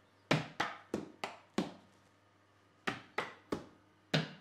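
Hands tapping on books lying on a countertop, one after another: five quick taps, a pause of about a second, then four more.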